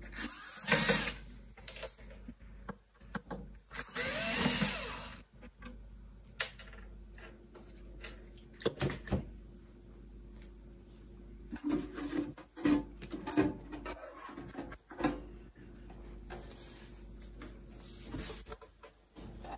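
Power screwdriver whirring in two short runs as the screws of a cassette deck's top cover are backed out, then a series of clicks and light knocks about twelve seconds in as the cover is handled and lifted off.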